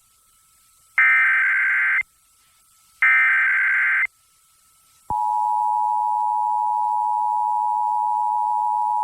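Emergency Alert System SAME header: the last two of its three short data bursts, each a harsh buzzing chirp about a second long with a second's gap between. About five seconds in, the EAS two-tone attention signal begins and holds steady, opening a coordinated monthly test.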